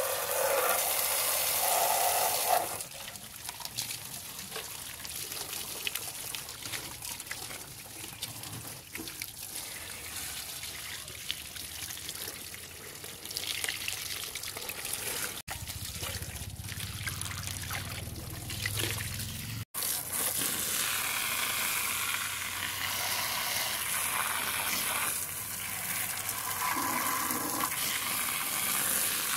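Water jet from a garden hose spraying onto a car's rusty underbody and suspension, splattering off the metal and dripping onto grass. The spray gets louder and brighter about twenty seconds in.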